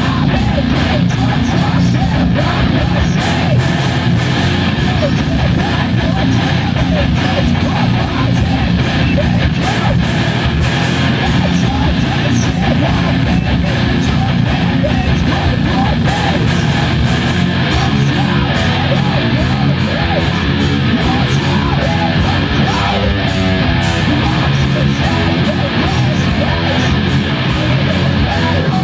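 Heavy metal band playing live: distorted electric guitars, bass guitar and a full drum kit with constant cymbals, with a vocalist singing into a microphone.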